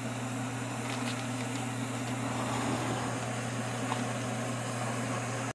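A pot of beans and water simmering on an electric stove: an even hiss over a steady low hum, with a few faint light ticks.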